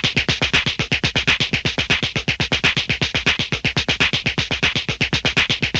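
A rapid flurry of punch sound effects, about eight or nine hits a second at an even pace, each a low thud with a sharp smack on top.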